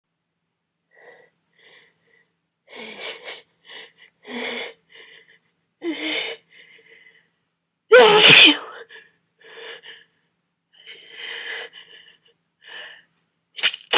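A man with a head cold sneezing: a run of short breaths and voiced catches builds up, then one loud sneeze comes about eight seconds in. More short breaths follow, and the next sneeze begins right at the end.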